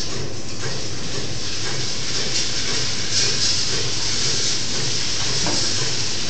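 Milking machine running on a cow: a steady hiss of air and milk through the stainless-steel claw and hoses over a low, even machine hum.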